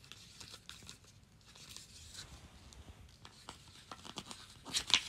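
Paper pages of a thick hardback art book being turned by hand: soft rustling and brushing with small clicks, and a louder page flick near the end.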